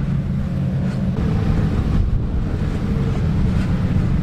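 Off-road vehicle engine running steadily, with wind noise on the microphone.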